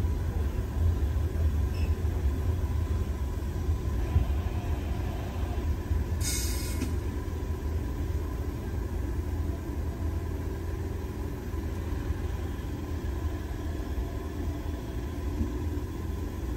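New York City subway train standing at a red signal, its equipment giving a steady low rumble, with a short hiss about six seconds in.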